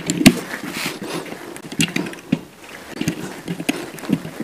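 A tubular box spanner clinking and scraping against the nuts on an electric geyser's heating-element flange as they are tightened down, in irregular metallic clicks and short scrapes.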